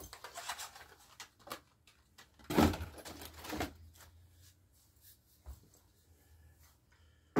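Handling noise as a pump shotgun is lifted out of its cardboard shipping box: rustling and scraping of cardboard and packing, with a louder scraping stretch about two and a half seconds in and a sharp knock near the end.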